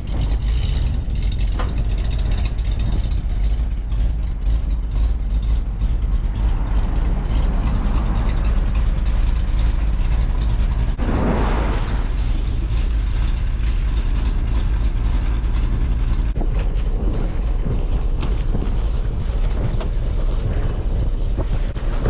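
GMC 6500 dump truck running as its tipped box is lowered after dumping a load of sawdust, with a short hiss about halfway through.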